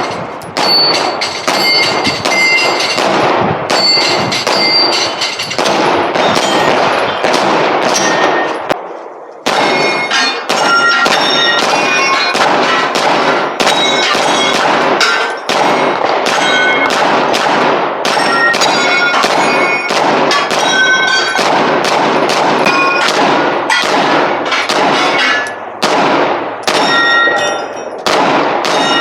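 Rapid strings of gunshots, each hit answered by the bright ringing ping of steel targets, with a brief pause about nine seconds in.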